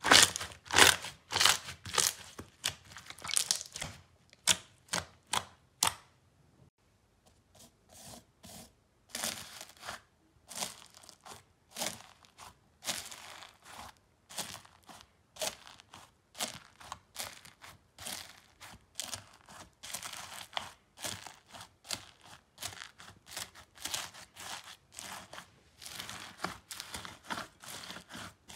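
Slime being pressed and squeezed by hand, giving quick irregular crackles and pops, loudest in the first six seconds. After a short pause, purple foam-bead slime (floam) is kneaded in a glass bowl, the beads and slime crackling steadily.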